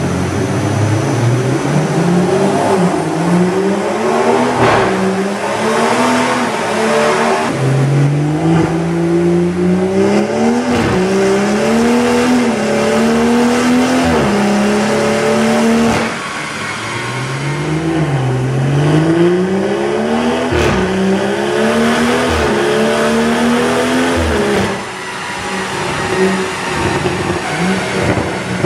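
BMW M140i's turbocharged 3.0-litre straight-six is run up under load on a chassis dyno. It revs up in pitch through several gears, each shift a short dip before the next climb, with a few sharp cracks. After a brief lull a second run climbs again, and near the end the revs drop away.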